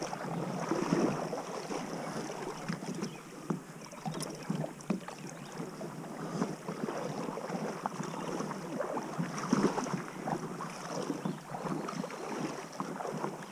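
River water lapping and splashing against a kayak's plastic hull, an irregular run of small splashes and light knocks.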